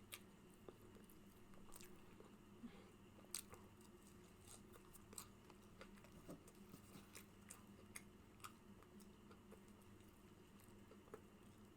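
Faint mouth sounds of a person chewing a McDonald's Quarter Pounder with cheese and bacon: scattered soft clicks and smacks, the strongest about three seconds in, over a steady low hum.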